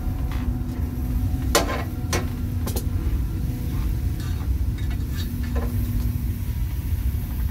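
Metal tongs clinking against hot stones three times about one and a half to three seconds in, and once more later, as the stones are handled for cooking a marmot from the inside, over a steady low rumble.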